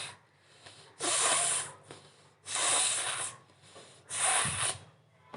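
A woman blowing hard through her nose, four forceful blasts about a second and a half apart with quieter breaths in between, her nostrils burning from dried chilli put inside the nose.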